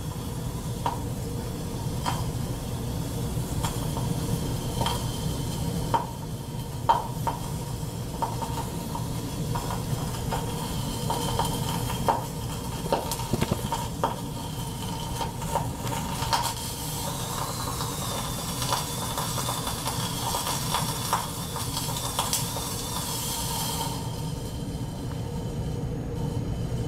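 Alkali metal reacting on water in glass beakers, fizzing and sizzling with many small crackles and pops as it gives off hydrogen, over a steady fume-hood fan hum. The hiss dies away near the end.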